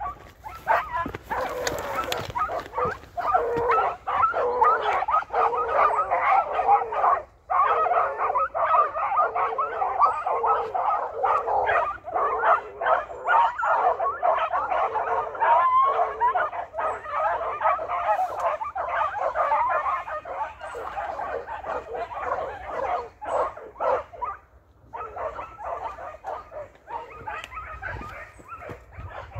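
A pack of Basset Fauve de Bretagne hounds baying almost without pause as they work through bramble cover, several voices overlapping. There is a brief break about seven seconds in, and the calling thins out near the end.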